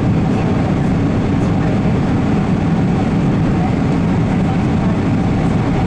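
Steady low rumble of engine and airflow noise heard inside the cabin of a Boeing 777-300ER on its landing approach.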